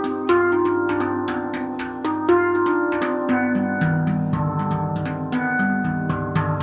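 Nammu handpan played in a fast improvisation: quick runs of struck notes, about six a second, ringing over one another, with deeper bass notes joining about halfway through.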